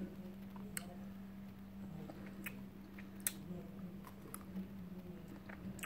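Quiet mouth sounds of a person eating a chocolate-and-nut-coated ice cream bar: soft chewing with a few scattered small clicks. A low steady hum runs underneath.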